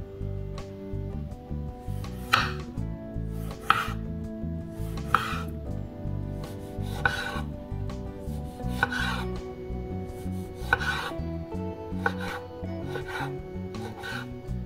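Chef's knife slicing through a tomato and knocking on a bamboo cutting board, one cut about every second and a half, the cuts coming quicker near the end as the slices are diced.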